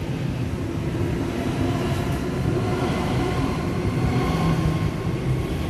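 Sydney Trains Waratah electric suburban train pulling out of the station past the platform: steady wheel and running rumble with a faint whine that rises a little as it gathers speed.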